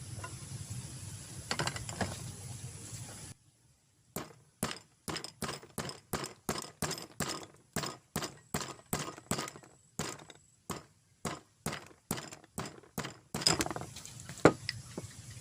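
Hammer tapping a nail into a melamine bowl to punch a drainage hole: an even series of light knocks, about two a second, for some nine seconds, then a few harder hits near the end as the nail goes through. Before the tapping, a few seconds of steady background noise stop abruptly.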